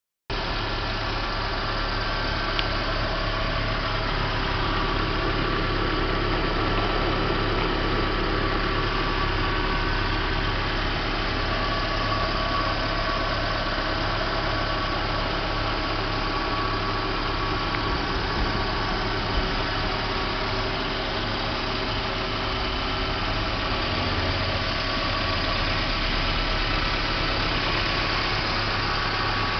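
Nissan KA20DE 2.0-litre four-cylinder engine in a Datsun pickup idling steadily.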